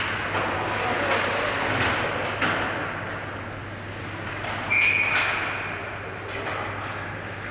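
Ice hockey play with scattered clacks of sticks and puck, then a referee's whistle blown once, for under a second, nearly five seconds in, stopping play. A steady low hum runs underneath.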